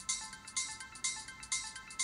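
Background music: a light melody of short, high notes over a hissing beat that comes about twice a second.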